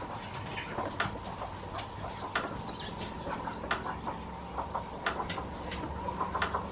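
Dogs eating dry dog food: irregular crunches and clicks of kibble, about one sharp one a second with smaller ones between, over a faint steady hum.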